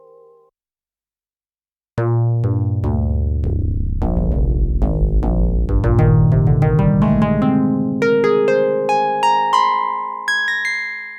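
Digital FM synthesizer keys from a Donner Starrykey-37 sample pack. After about two seconds of silence, a run of struck notes that die away quickly plays over deep bass notes, then higher notes that ring on.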